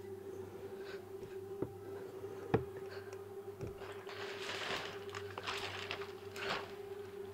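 A steady low hum, with a couple of sharp clicks in the first half and several short bursts of rustling in the second half.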